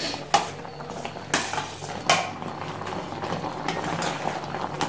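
A metal slotted ladle clinking and scraping against a steel pot several times while stirring, with the liquid bubbling at a boil underneath. The mixture is being stirred so the jaggery dissolves into the boiling water around the rice-flour dumplings.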